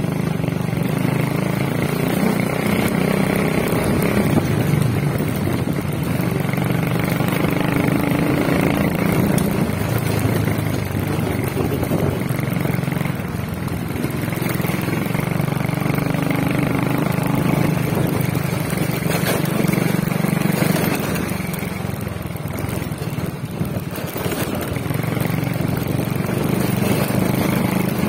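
Small motorcycle engine running while riding along a rough dirt road, its note rising and falling a few times with the throttle. A steady rush of road and wind noise runs underneath.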